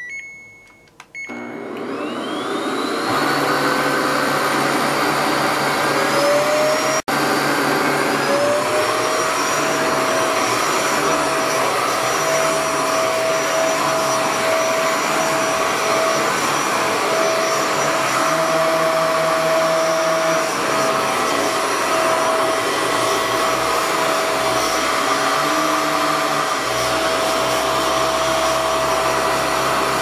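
Raycop UV bedding vacuum cleaner switched on: short beeps, then its motor spins up with a rising whine over several seconds and settles into a steady whine.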